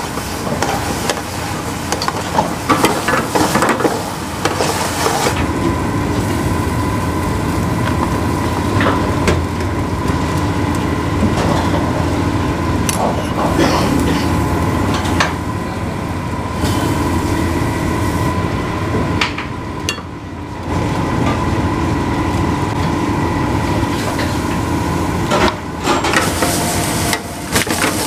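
Steady rush of a commercial kitchen's high-flame gas burner, with a metal ladle now and then knocking and scraping in a heavy frying pan.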